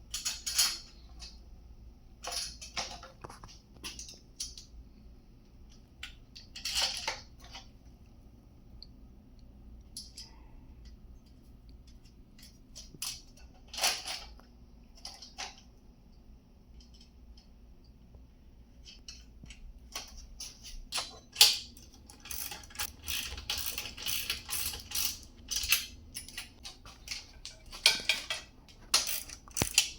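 Metal hardware and tools clinking and rattling during cart assembly: scattered sharp clinks at first, then a busy run of rapid clinks from about twenty seconds in.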